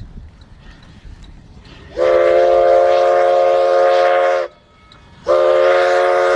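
Steam locomotive whistle sounding two long blasts, each a chord of several steady tones, the first about two seconds in and the second starting near the end. A faint low rumble comes before them.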